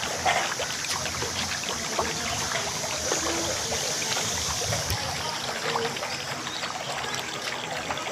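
Water trickling steadily, full of small splashes and clicks.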